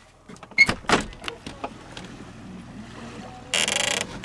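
Sharp clicks and knocks of a truck camper's door being unlatched and opened, loudest about a second in, then a short harsh rush of noise near the end.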